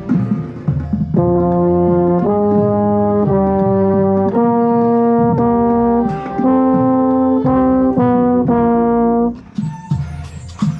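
High school marching band brass section, with a euphonium close to the microphone, playing a slow run of loud held chords that change about once a second, then breaking off about nine seconds in; drum taps come before and after the chords.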